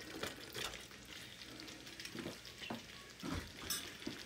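Faint sizzle of curry sauce simmering in a frying pan as diced raw beef is tipped in from a metal bowl, with a few soft knocks as the pieces land.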